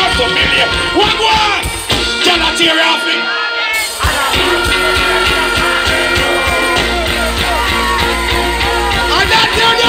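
Live dancehall music over a concert sound system, heard from within the crowd: a steady beat and bass line with a sung and chanted vocal. The bass drops out briefly about three seconds in and the beat comes back in at about four seconds.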